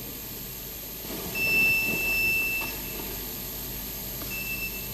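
Electronic voting machine's control unit beeping as it is switched on. It gives one long, steady high beep of over a second, then a short beep of the same pitch about a second and a half later.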